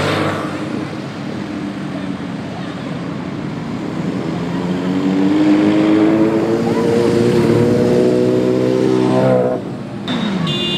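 A group of motorcycles riding past in street traffic, their engines rising in pitch as they accelerate and loudest in the second half. The sound breaks off suddenly near the end.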